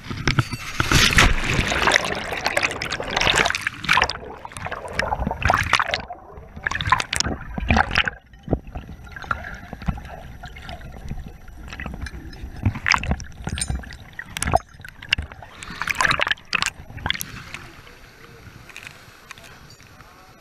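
A camera plunging into a canyon pool. It starts with a sudden splash, then the muffled rush and gurgle of water and bubbles around the submerged camera, with many scattered knocks and clicks, growing quieter near the end.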